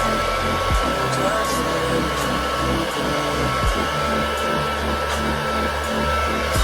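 Hand-held hair dryer blowing steadily, with a thin, even whine over its rush of air.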